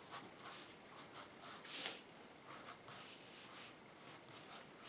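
Pencil sketching on paper: a series of faint, short scratchy strokes.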